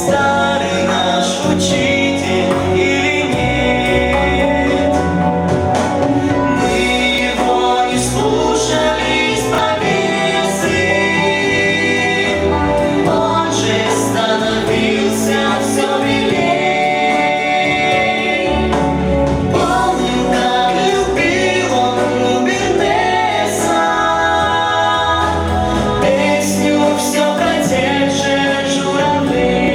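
A vocal ensemble singing a song with instrumental accompaniment, steady and full throughout.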